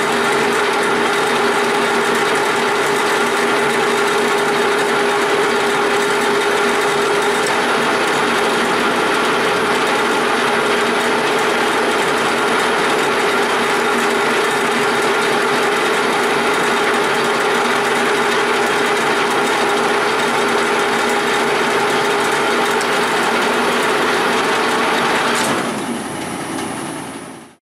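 1942 Springfield engine lathe running under power feed, taking a roughing cut on a 1-inch mild steel bar: a steady mechanical whir with gear whine. At about 25 seconds the sound changes and drops, then fades away.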